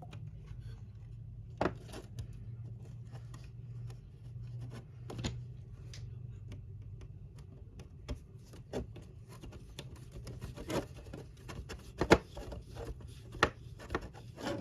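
Small plastic model-kit parts and a screwdriver being handled on a work table while a screw is fitted: scattered clicks and taps that come more often near the end. A low steady hum runs under the first half.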